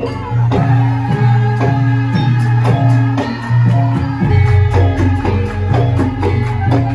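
Javanese gamelan music accompanying a lengger dance: held, ringing pitched notes over a steady low tone, punctuated by regular drum strokes.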